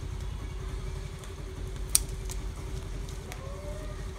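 Scissors snipping water spinach (kangkong) stems during harvest: one sharp snip about two seconds in and a few fainter clicks, over a steady low rumble.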